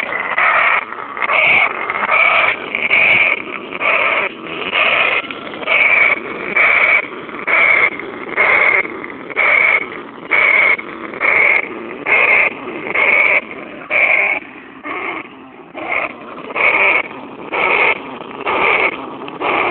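An animal calling over and over at an even pace, about once a second, each call short and pitched.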